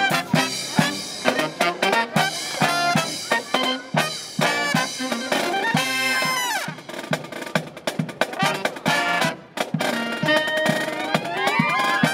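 Brass marching band playing: trumpets, saxophones, trombone and sousaphone over snare and bass drum. A falling glide sweeps down through the brass about halfway through, and rising runs come near the end.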